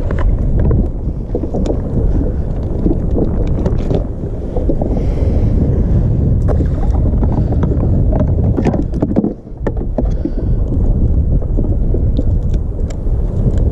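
Steady wind rumble buffeting the action camera's microphone, with scattered light clicks and taps throughout and a brief lull about nine seconds in.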